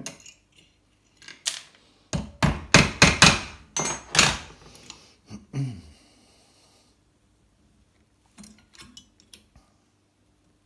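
Metal clanks and knocks from a fork and a steel fork-bending jig being handled and repositioned: a quick run of loud knocks over about three seconds, then a few faint clicks near the end.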